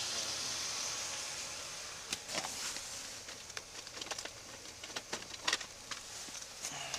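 Rustling hiss for about two seconds, then scattered small clicks and knocks as someone handles the inside of a pickup truck's cab and its vinyl seat.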